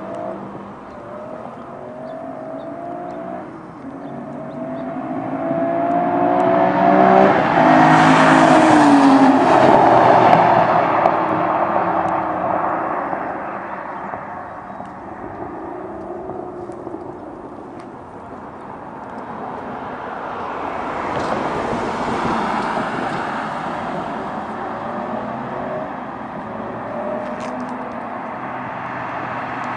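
Aston Martin DBS's 6.0-litre V12 accelerating hard past, its engine note climbing as it approaches, loudest about eight to ten seconds in, then fading away. A second, quieter vehicle pass swells and fades about twenty seconds in.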